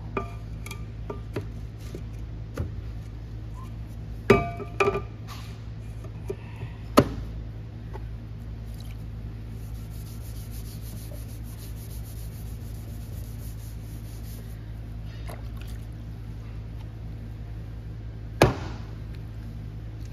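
Electric pottery wheel running with a steady low hum, with a few scattered knocks and clinks, the loudest a sharp knock near the end.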